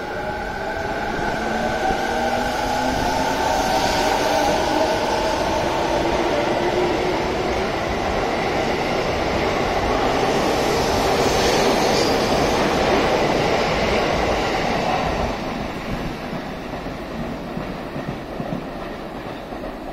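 JR 209 series 500 electric commuter train pulling out and picking up speed: the traction motors whine, rising in pitch over the first few seconds, over the rumble of wheels on the rails. The sound eases off after about fifteen seconds as the train draws away.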